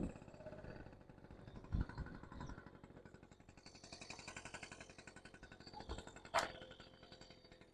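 Honda Express NC50's small air-cooled two-stroke engine idling faintly with a fast even pulse, and a single sharp click about six seconds in.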